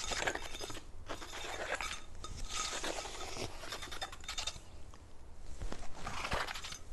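Fingernails scratching and tapping across the ridges of a ribbed plastic cart tray for ASMR, in about five bouts of rapid clicking scrapes.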